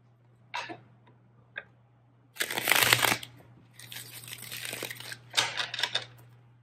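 A deck of tarot cards being shuffled by hand: a few light shuffles, then longer rasping bursts of cards sliding and riffling together, the loudest about two and a half seconds in.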